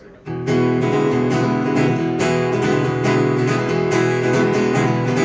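Acoustic guitar strummed in steady chords, starting about a quarter of a second in: the instrumental opening of a country song, before the vocal comes in.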